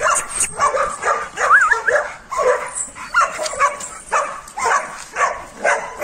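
Dogs barking over and over, about two barks a second without a break.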